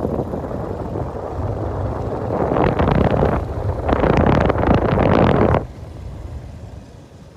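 Wind buffeting the microphone of a moving rider, over a low rumble of travel, coming in gusts and then dropping away sharply nearly two seconds before the end.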